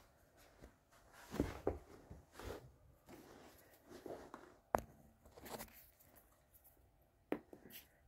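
Quiet rustling and shuffling, with two sharp clicks, one about halfway through and one near the end; no meowing.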